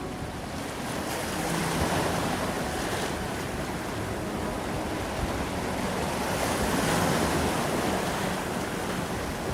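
Pacific Ocean surf washing in and out, swelling louder about two seconds in and again near seven seconds, with wind buffeting the microphone.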